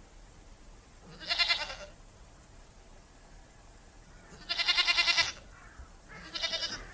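An animal calling three times, each call short with a wavering pitch; the middle call is the longest and loudest.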